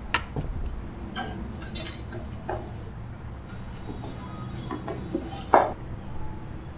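A handful of light clinks and knocks, the sharpest about five and a half seconds in, over a steady low hum.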